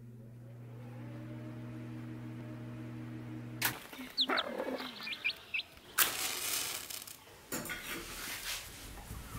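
A steady low electronic drone of a few held tones, cut off about a third of the way in. Then come a few short, high, rising chirps from chickens and a chick pecking at grain. Bursts of rustling noise follow in the last third.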